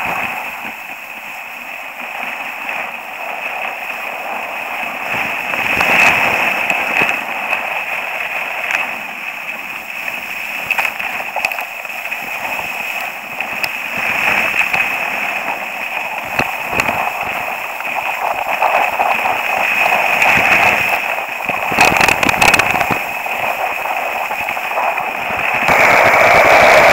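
Skis sliding and scraping over packed snow on a downhill run, picked up close by an action camera strapped to the ski boot: a steady rush of noise with scattered crackles, getting louder near the end as the skis carve and throw up spray.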